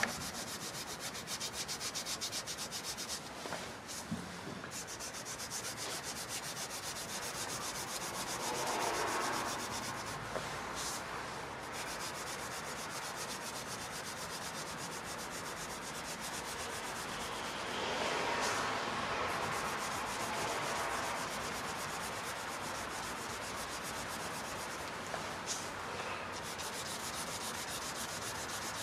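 Hand wet-sanding of old painted sheet-metal body panels: a small piece of abrasive paper rubbed back and forth over the paint in rapid short strokes, a continuous scratchy rasp.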